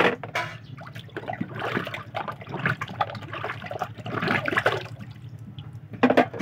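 Dishes being washed by hand in a basin: water splashing and sloshing in irregular bursts, with short knocks of dishes and plastic containers, loudest at the start and again about six seconds in.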